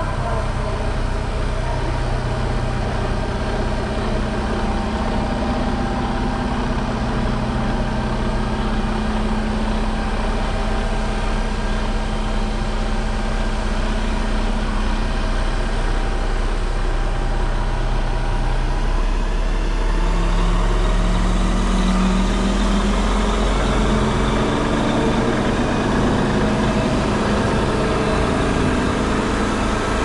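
Diesel engine of a Mercedes-Benz truck carrying a Zoomlion 70-metre concrete pump, running steadily while it powers the boom hydraulics. About two-thirds of the way through its note shifts up and several slowly rising tones come in.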